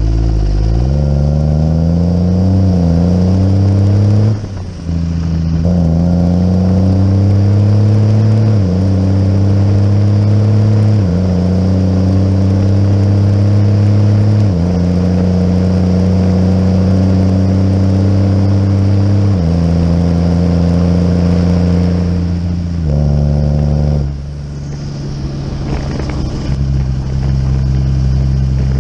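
Tractor's diesel engine working hard as it pulls a muck cart along the road. The engine note holds steady within each gear and steps to a new pitch at each of several gear changes, with a brief dip about four seconds in. It eases and quietens a few seconds before the end.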